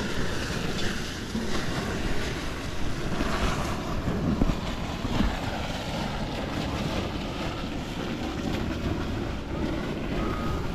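Wind buffeting the microphone in a steady low rumble, over a rush of water from the hot spring pools.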